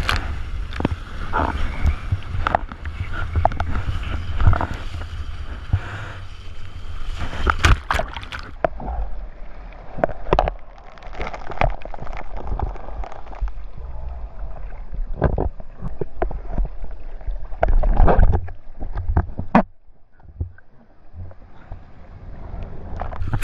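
Ocean water splashing and sloshing against a GoPro in its waterproof housing, over a heavy low rumble of surf, with irregular sharp splashes throughout. Near the end the sound drops and turns muffled for a couple of seconds before coming back.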